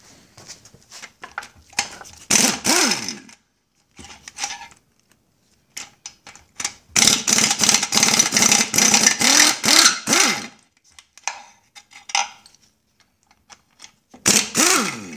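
Impact wrench hammering out outboard powerhead bolts in three bursts, its motor pitch rising and falling with the trigger. The middle burst is much longer, on a bolt that was a little stuck. Light metal clinks come between bursts as the socket and bolts are handled.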